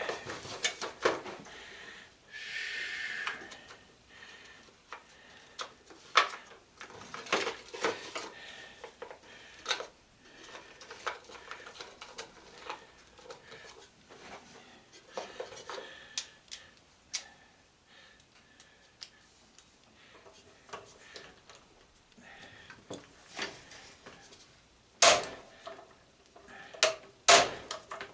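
Hammer blows on a hand impact screwdriver working a stripping Phillips screw, amid scattered metal clinks and taps of tools, with a short rasping scrape about two seconds in and two loud sharp knocks near the end.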